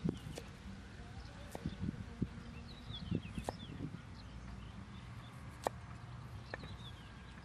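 Large kitchen knife chopping water lily stems on a round wooden chopping board: sharp, irregular knocks of the blade striking the wood, about eight in all, with longer gaps between some of them.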